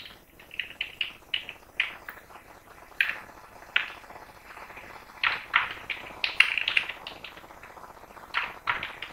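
Typing on a computer keyboard: irregular runs of keystroke clicks, sparser about four seconds in and denser again after five.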